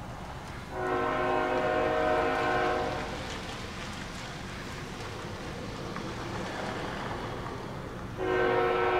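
Diesel locomotive's multi-note air horn on a loaded coal train sounding two long blasts, the first about a second in lasting some two seconds, the second starting near the end. A steady low rumble of the approaching train runs between them.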